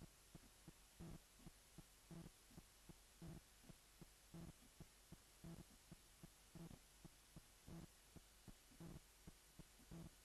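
Faint, steady heartbeat sound. A stronger low thump comes about once a second, with quicker, lighter beats between.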